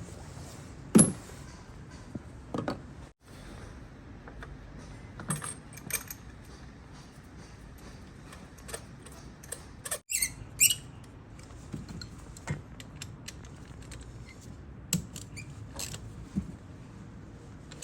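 Scattered clicks, taps and light metallic clinks of small metal parts and tools being handled by hand, loudest about a second in and again around ten seconds.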